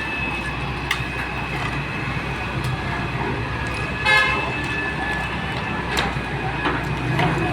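Excavator's diesel engine running steadily with a thin high whine over it, a few sharp metallic knocks, and a short vehicle horn toot about four seconds in.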